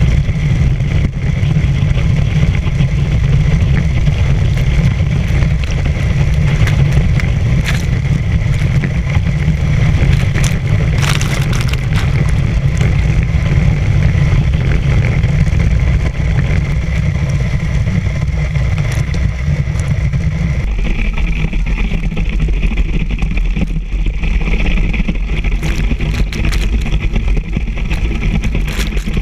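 Steady loud rush of water spray and wind on an action camera riding among water-skiers being towed at speed. The low rumble eases about two-thirds of the way through.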